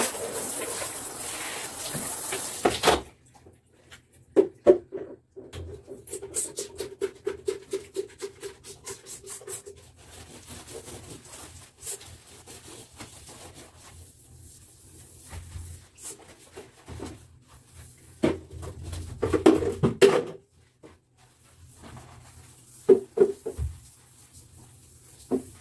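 Bathroom cleaning: a steady hiss of water spray for about the first three seconds. Then comes rapid rhythmic scrubbing with a sponge on tiles and window glass, with scattered knocks and bumps of bottles and hands.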